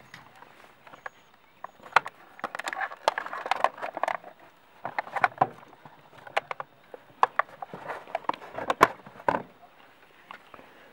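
Irregular clicks, taps and short rustles of packaging being handled: items are lifted out of a cardboard box and set down on a glass tabletop, in clusters with short quiet gaps.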